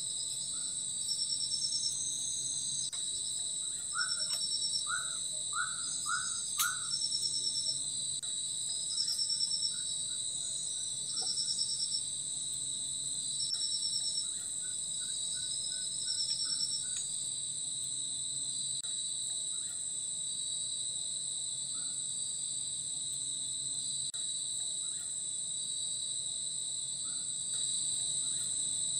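Tropical rainforest insect chorus: a steady, high-pitched drone of insects, with a short trilling insect call repeating every second or two through the first half. A bird gives a quick run of short chirps about four to seven seconds in, and there is one sharp click near the middle of that run.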